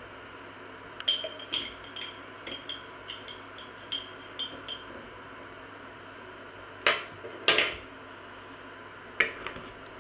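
A metal teaspoon clinking against a glass jar and pot, about ten quick light clinks with a bright ring, then two louder, longer scraping clatters and a single knock near the end.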